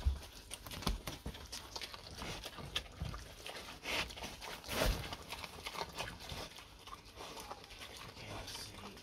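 Pet pig eating pumpkin scraps off the floor, nosing through cardboard and packaging: irregular crunching, rustling and clicks, with a couple of louder knocks about four and five seconds in.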